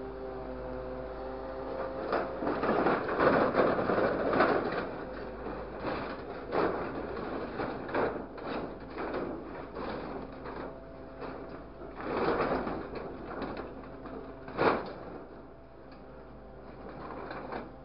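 Grapple truck's engine running with a steady hum, then long stretches of clattering and crashing as the grapple drops and presses scrap sheet metal into a truck bed, with a single sharp bang about three quarters of the way through.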